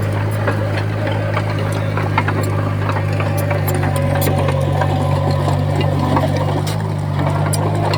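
Komatsu D20P bulldozer's diesel engine running steadily, with scattered sharp clicks and knocks over it.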